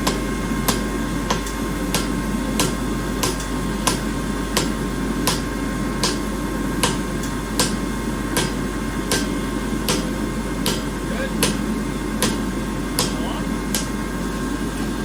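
A hammer striking steel, about twenty even blows at roughly one and a half a second, as the steel is forged straight into bar. A steady running noise sits underneath the blows.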